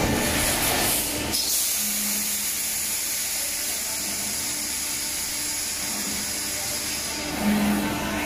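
Blister-packaging thermoforming machine running with a steady mechanical hiss. A short low hum recurs a couple of times, and a lower rumble drops away about a second in.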